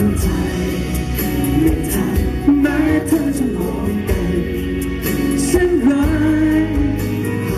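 A man singing live into a handheld microphone over accompaniment music with a steady beat.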